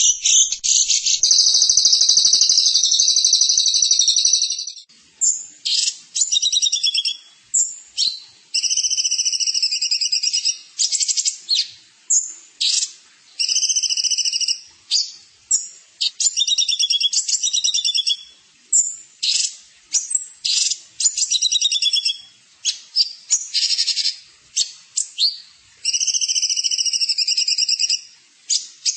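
A songbird singing a long, rapid, high-pitched trill for about three seconds, then a string of short, fast trilled phrases repeated with brief gaps.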